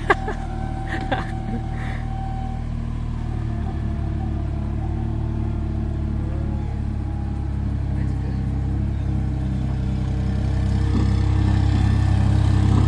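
Mini skid steer loader's engine running steadily under load while it carries a heavy crate on its forks, growing louder about ten seconds in. A couple of brief clicks near the start.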